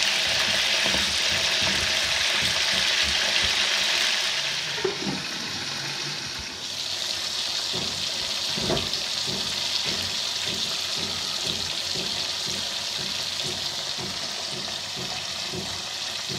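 Whole peeled potatoes sizzling in hot oil in a steel karahi, with small crackles scattered through. The sizzle is loudest at first, eases off about four to five seconds in, then runs on as steady, gentler frying over a very low flame.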